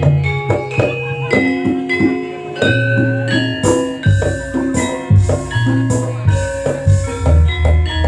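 Live campursari music in an instrumental passage: quick, struck, ringing melody notes over a deep, steady bass line and drumming, with no singing.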